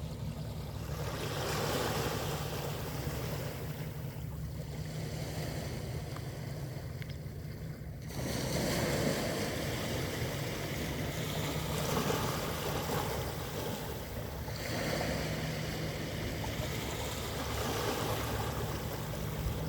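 Sea waves washing in and out, swelling and easing every couple of seconds, over a steady low rumble. The wash grows suddenly louder about eight seconds in.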